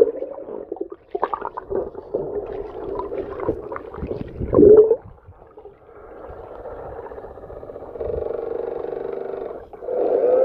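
Muffled underwater sound in a swimming pool: sloshing and knocks, with a loud swell about four and a half seconds in, then a steady hum with several tones from about six seconds in that breaks off for a moment near the end.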